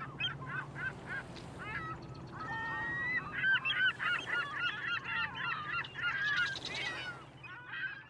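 A flock of gulls calling over one another as they take off from water. The calls are many short, bending cries: a few spaced ones at first, then a dense overlapping chorus through the middle that thins near the end. A low steady hum runs underneath.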